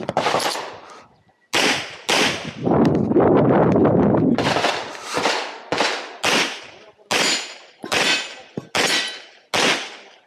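Semi-automatic pistol shots fired in quick succession during a practical-shooting stage, more than a dozen in all, at roughly two a second and often in close pairs. A pause of about two seconds of rough noise comes early in the string.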